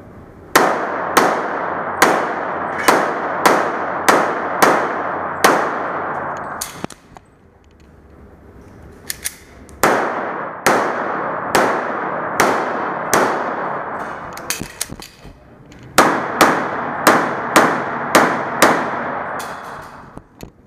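Tanfoglio Limited Custom .40 S&W pistol firing fast strings of shots, about one shot every two-thirds of a second, in three strings with short pauses between them. Each shot echoes off the walls of an indoor range, and a few light clicks come in the pauses.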